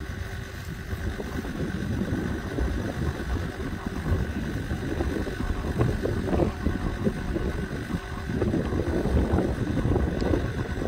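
Wind buffeting the microphone: a loud, uneven rumble that rises and falls in gusts.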